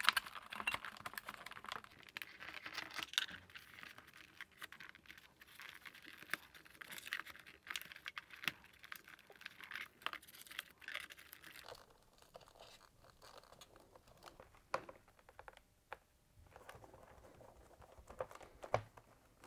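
Faint handling noise from working on a fridge evaporator fan housing: small clicks, scratches and rustles as the plastic cover, wiring and tape are pressed and clipped into place by hand, with a few sharper clicks near the end.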